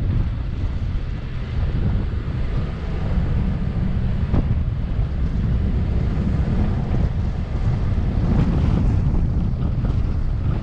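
Wind buffeting the microphone over the steady low rumble of a Mazda CX-9 driving across soft sand.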